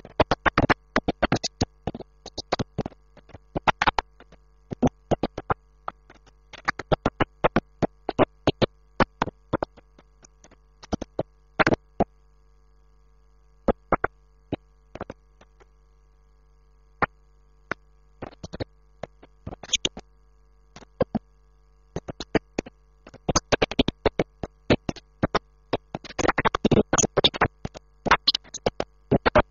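Irregular clusters of sharp clicks and crackle, starting and stopping in bursts, with a quieter stretch in the middle, over a faint steady electrical hum: a broken, crackling audio track in place of the expected talk.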